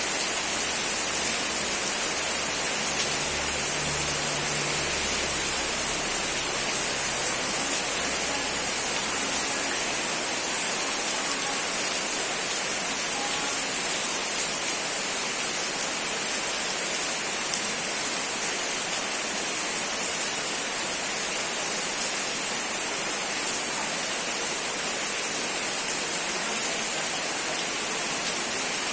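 Steady rain falling, an even, unbroken wash of noise with a strong high hiss.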